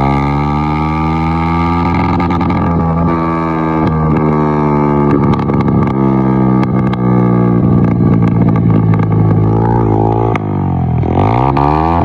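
Yamaha YBR's single-cylinder four-stroke engine running through an aftermarket HKS exhaust while riding. The note is loud, bassy and smooth and mostly holds steady, then dips in pitch and climbs again near the end as the throttle changes.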